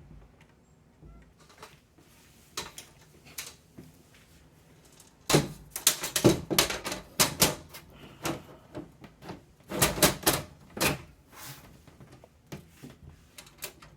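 Rapid clicks and clatter of hard parts being handled and fitted while a desktop PC is put back together, in two dense bursts, the first about five seconds in and the second about ten seconds in, with scattered single clicks around them.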